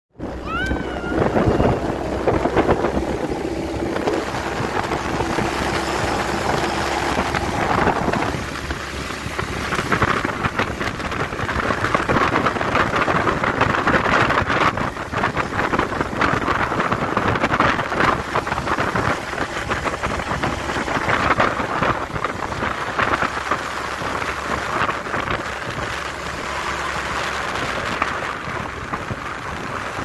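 Wind buffeting the microphone over the rumble of a moving truck and its road noise, heard from the open cargo bed.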